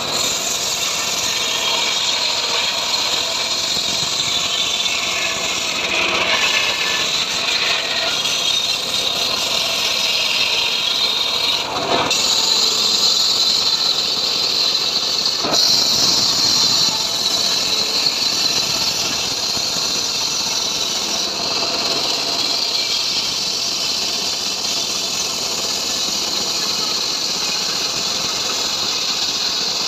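Homemade sawmill running continuously and sawing sengon wood into beams: a steady machine drone with the hiss of the blade cutting timber, somewhat louder for a few seconds around the middle.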